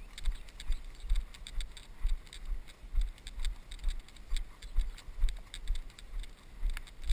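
Handler's footsteps through grass, heard through a body-worn GoPro as steady low thumps about two to three a second. Each step brings a light clicking rattle from the camera and its mount.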